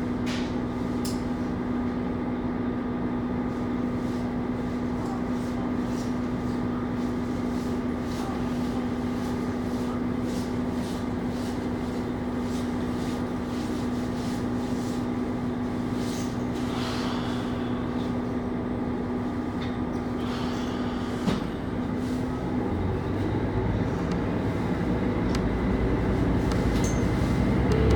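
KiHa 25 diesel railcar heard from inside the car while running: a steady engine drone with the rumble and clicking of wheels on rail joints. About three-quarters of the way in, a click and a change of engine note, after which the engine sound builds louder towards the end.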